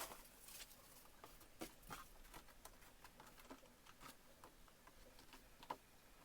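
Polystyrene packing peanuts being handled and shifted in a box: faint, scattered light clicks and rustles.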